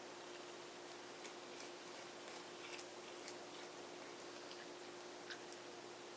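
A cat chewing raw baby bok choy: faint, irregular crisp clicks as it bites the stalks, over a steady hiss and a low hum.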